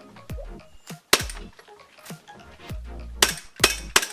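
Gas-blowback gel blaster pistol (Kublai P3, Glock 19 Gen5 replica) being fired: a single sharp crack about a second in, then a quick cluster of three sharp clicks near the end. Background music with a steady beat plays throughout.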